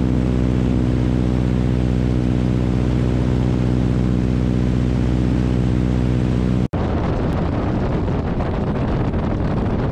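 Biplane's radial engine droning steadily in flight. About two-thirds of the way through it cuts off suddenly to loud wind buffeting on the microphone, with a low rumble under it.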